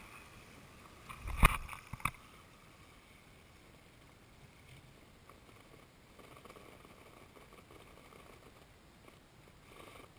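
RC rock crawler working over rocks, its electric drivetrain giving a faint whine, with one sharp loud knock about a second and a half in and a smaller click half a second later.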